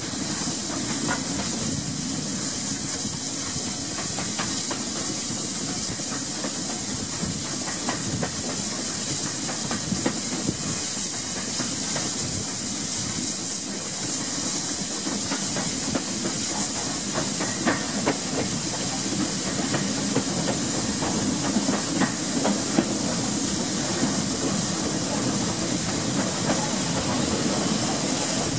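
GWR Hall-class 4-6-0 steam locomotive and its train running, heard from just behind the tender: a steady hiss over the rumble of the wheels, with a few faint clicks from the rails.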